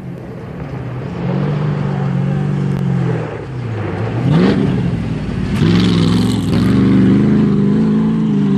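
Off-road race vehicle's engine running hard, its pitch dipping a few seconds in and then revving up sharply, and rising again, louder, from about five and a half seconds.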